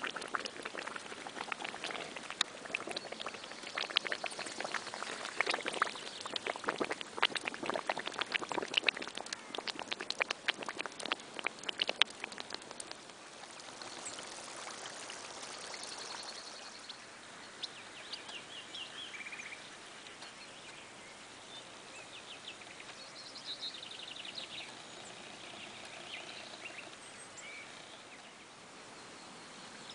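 Waterlogged ground after a downpour bubbling: a dense crackle of small pops and fizzing as air escapes through the flooded soil for the first dozen seconds or so, then it thins out. Small birds chirp now and then in the quieter second half.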